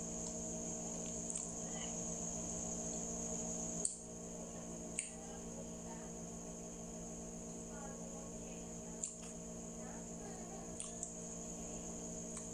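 Mouth sounds of chewing a sticky glutinous rice cake (mochi), with a few short sharp wet clicks, over a steady background hum and a high-pitched whine.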